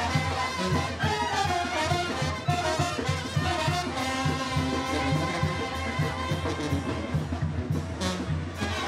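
Mexican brass band (banda) playing a lively tune: trumpets and trombones over a steady, pulsing tuba bass line.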